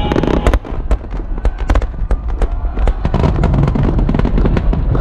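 Fireworks crackling: a rapid, irregular volley of sharp pops from crackling stars, thickest in the first few seconds, over a low rumble.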